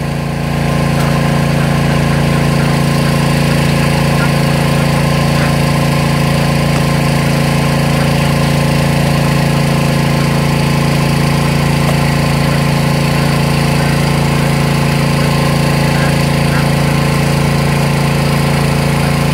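Small engine-driven water pump running steadily at a constant speed as it pumps water out of a pond.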